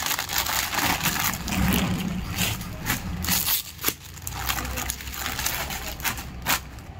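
Clear plastic packaging crinkling and rustling as packed clothes are handled and pulled from their covers, with two sharp clicks, one about four seconds in and one near the end.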